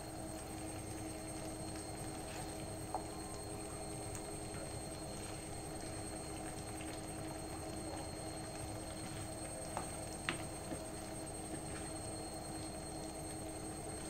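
A steady electrical hum underneath a few light clicks of a plastic spatula tapping against a plate and a pan, once about three seconds in and a cluster around ten seconds in.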